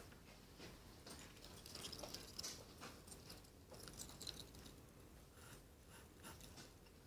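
Near silence, with faint scattered crackles and soft clicks.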